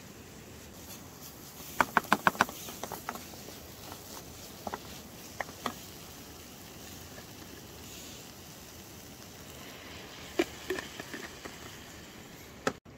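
A spoon knocking and scraping against a cooking pot as spices are stirred into the food: a quick run of about five knocks about two seconds in, a few scattered single knocks, and another cluster about ten seconds in, over a steady low hiss.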